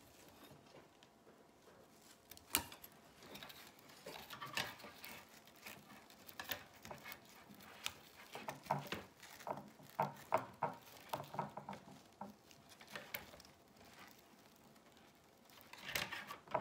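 Red decorative mesh being bunched and looped by hand around a wire wreath frame, with irregular rustling and light ticks, busiest in the middle.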